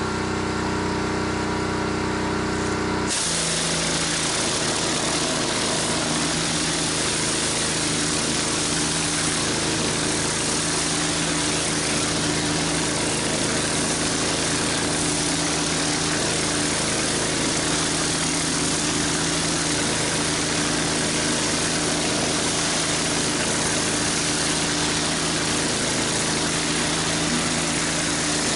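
Gas pressure washer running while its BE Whirl-a-Way 14-inch surface cleaner is pushed over wet concrete. About three seconds in the sound changes abruptly to a steady loud hiss of the spinning spray jets, with the engine's steady hum beneath it.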